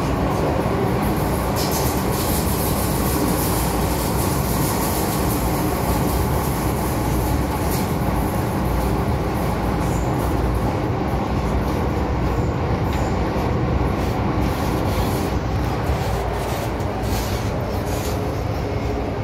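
Running noise of an MTR Island Line M-Train (Metro-Cammell EMU) heard from inside the passenger car: a steady, loud rumble of wheels on rail, with a few faint clicks from the track.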